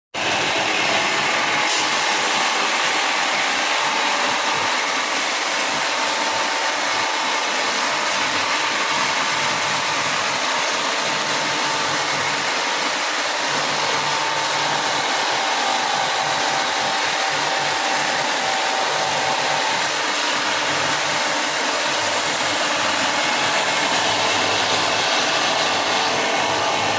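Four-head belt sanding machine running steadily, its abrasive belts sanding metal hardware parts: a continuous rushing hiss with a faint whine that wavers slightly in pitch.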